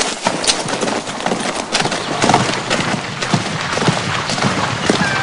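A horse galloping: a quick, irregular run of hoofbeats on grass.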